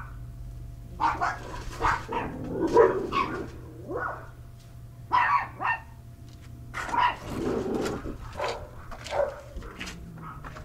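Dogs barking repeatedly in short bursts, set off by chihuahuas at the gate, over a steady low hum.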